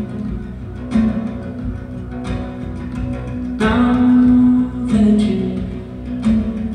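Live acoustic guitar, fingerpicked in a repeating pattern, with a stronger plucked accent a little more than once a second.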